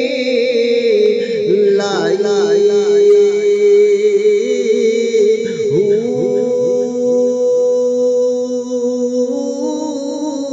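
Background music: wordless vocal singing or humming with long held notes and wavering, sliding runs.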